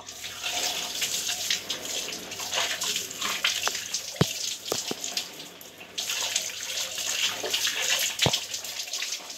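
Water spraying from a handheld shower head and splashing onto a person in a shower stall, with a couple of sharp clicks, one near the middle and one near the end.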